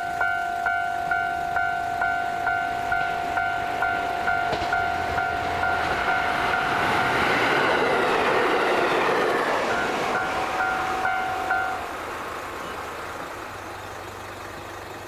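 Japanese level-crossing warning bell ringing in a steady rapid pattern, a little under two strikes a second. A diesel train passes over the crossing about halfway through with a swell of rail and engine noise. The bell stops near the end, leaving a low engine hum.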